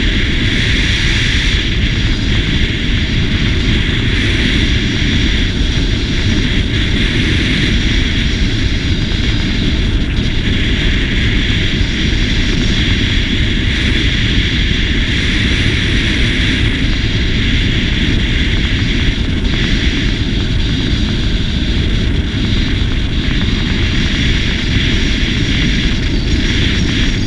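SYM GTS 250 scooter's single-cylinder engine running steadily at cruising speed, under a constant rush of wind and road noise on the camera microphone.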